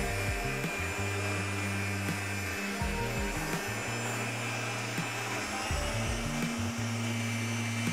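Stand mixer motor running steadily at high speed, its wire whisk beating buttercream in a metal bowl. Background music plays along with it.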